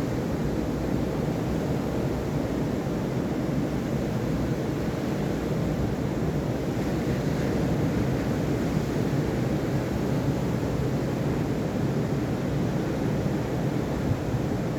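Sea surf washing steadily onto a beach, with wind buffeting the microphone.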